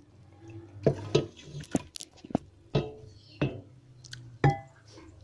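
Serving spoon clinking and scraping against a ceramic bowl as thick curry is spooned in, with soft wet plops. Several sharp clinks, some briefly ringing, the loudest about a second in and again near the end.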